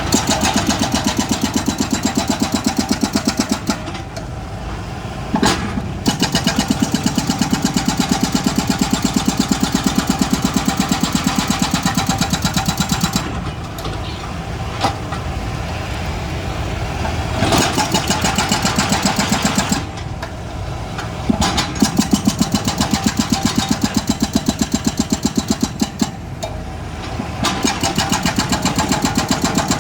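Excavator's diesel engine working, repeatedly rising to a louder, rapidly pulsing run as it takes load and dropping back to a quieter run between, with a few sharp metallic knocks.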